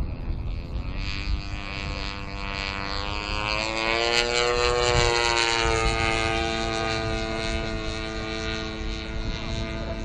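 OS 160 FX two-stroke glow engine of a Seagull Edge 540 model aerobatic plane running in flight, with its propeller, growing louder as the plane comes close. Its pitch rises a little around the middle, where it is loudest, then eases slightly lower. Low wind rumble lies underneath.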